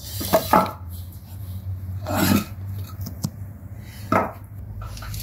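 Wooden boards being handled and slid under the minibus's rear dual wheels: a few separate scrapes and knocks of wood, over a steady low hum.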